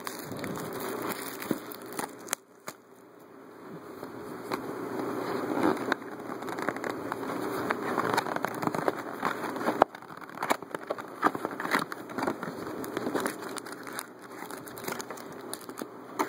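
Trading-card packaging being handled and opened: plastic wrap and foil crinkling and crackling, with many small irregular clicks and rustles and a brief quieter spell a few seconds in.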